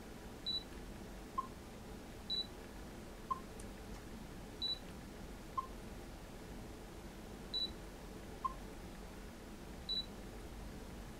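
Canon EOS M focus-confirmation beeps: five quick, high double beeps, each marking focus lock, with a shorter, lower blip between each pair.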